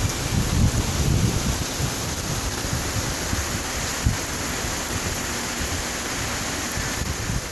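Heavy rain pouring down in a steady hiss, with wind buffeting the microphone in gusts and one brief thump about four seconds in.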